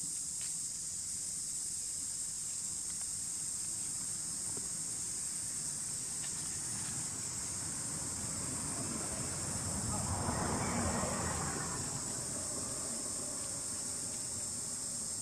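Steady high-pitched insect drone, with a louder rushing noise swelling and fading about ten to twelve seconds in.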